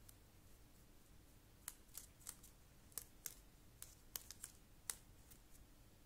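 Soft, scattered clicks and taps from a paintbrush dabbing paint onto a leaf laid on paper, about a dozen of them, starting nearly two seconds in and stopping about a second before the end.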